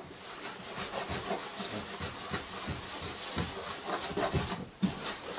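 A petrol-dampened rag scrubbed back and forth over the plastic engine cover of an Uragan motorised snow tug, cleaning off grime. The scrubbing runs in quick, continuous strokes and breaks off briefly near the end.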